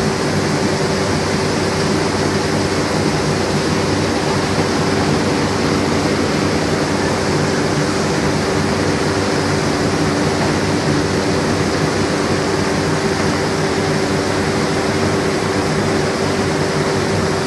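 Steady, loud roar of steel-plant machinery at a hot-metal ladle, a constant rushing noise with a steady hum, unchanging throughout.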